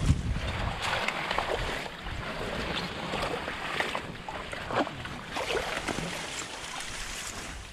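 Water splashing and sloshing as several people wade and haul a fishing net through the water, with irregular splashes.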